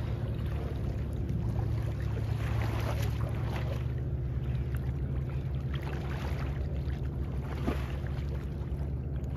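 Steady low motor hum, with a few brief water splashes from the hooked sturgeon and the wading man in the shallows.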